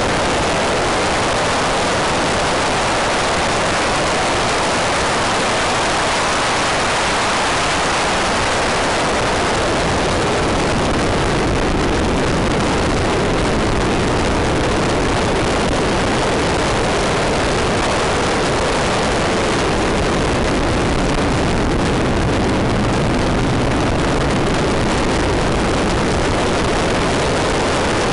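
Rally car driven hard along a tarmac special stage, heard from inside the cabin: engine and tyre and road noise blending into a loud, steady roar.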